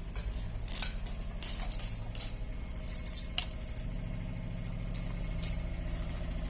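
Several light metallic clinks and jingles in the first half, over a steady low hum that continues after the clinking stops.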